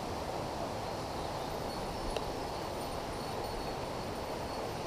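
Steady rush of a mountain headwater stream running over boulders, high with rainy-season water, with one faint click about two seconds in.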